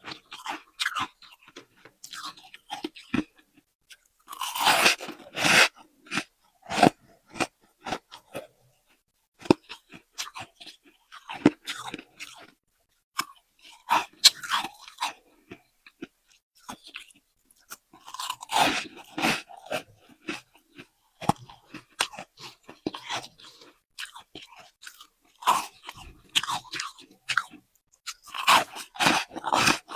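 Someone biting and chewing soft, powdery freezer frost, crunching in irregular clusters of bites with short pauses between them.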